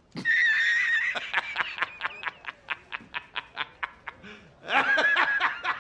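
A man laughing hard: a high, drawn-out cackle, then a long run of quick, short 'ha' bursts, and a second loud cackle near the end.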